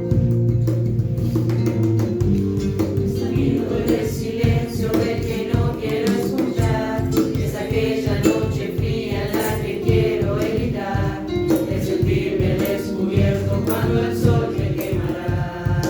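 A song: voices singing over sustained instrumental chords and a steady percussive beat.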